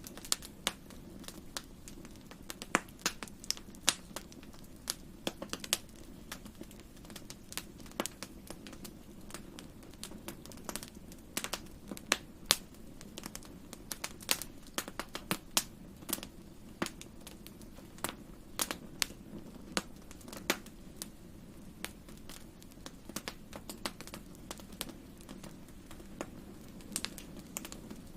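Wood fire crackling in a fireplace: irregular sharp pops and snaps, some much louder than others, over a steady low rumble.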